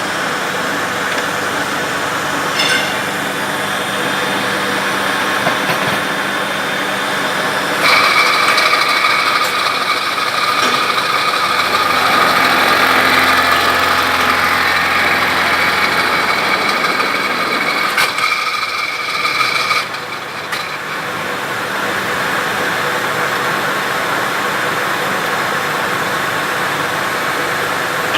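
Milling machine running steadily. For about twelve seconds in the middle a steady high whine joins it as the cutter works the piece, then stops.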